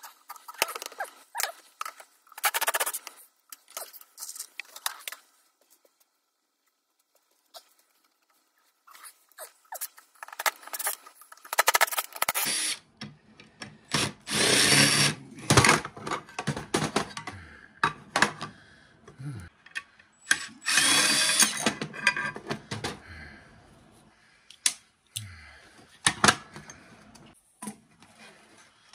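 Milwaukee cordless drill/driver running in several short bursts, the two longest in the middle, backing screws out of the cordless circular saw's aluminium blade guard. Between the runs, screws and metal parts clink and knock on the bench.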